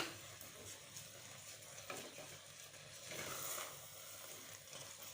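Faint sizzling and stirring from a pan of rice cooked in coconut milk, its liquid nearly cooked off and the flame just turned off, with a slightly louder stretch about three seconds in.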